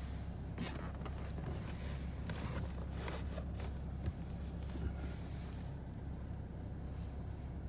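A BMW's engine idling in park, a steady low hum heard inside the cabin, with scattered rustles and light clicks of handling.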